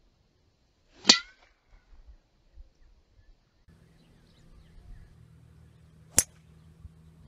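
Two golf shots: a club striking the ball off the tee about a second in, with a short metallic ring, then a crisper, shorter crack of a 3-wood strike near the end. A faint low steady hum runs under the second half.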